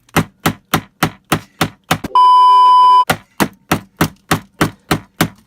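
Rapid, evenly spaced blows on a camcorder's casing, about three a second, as it is being smashed. About two seconds in, a loud steady electronic beep cuts in for about a second, the way a censor bleep does, then the blows resume.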